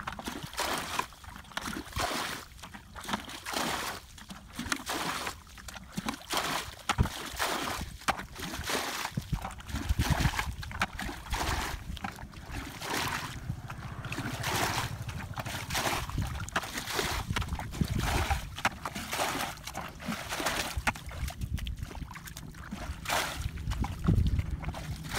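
Irregular splashing and sloshing of shallow muddy water in quick, uneven bursts, with a low rumble underneath from about ten seconds in.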